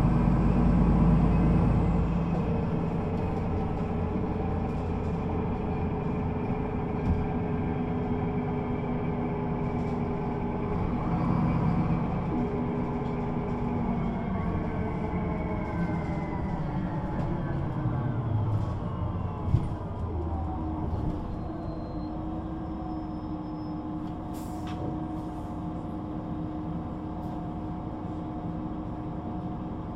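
Solaris Urbino 18 III articulated bus, its DAF engine and Voith gearbox running under way. The engine eases off a couple of seconds in, and from about halfway its tones slide down as the bus slows. After a sharp click it settles into a steady, lower running for the last third.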